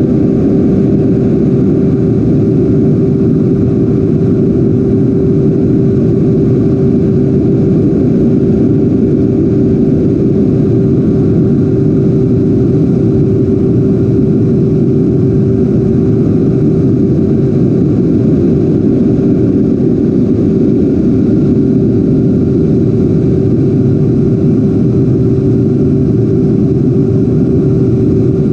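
90mm electric ducted fan of an RC A-10 jet running at steady power, heard from an onboard cockpit camera as a constant hum with one steady tone over heavy airflow rush.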